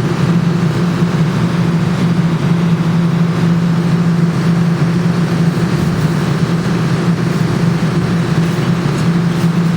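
Claw machine running during a play: a steady low mechanical hum that dips briefly a few times.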